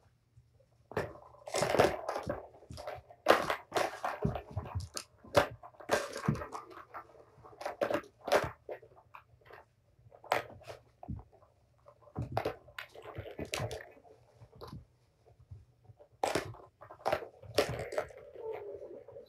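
Kittens and their mother at play: irregular knocks, clatter and scuffling of paws on toys and the floor, in uneven bursts with short pauses.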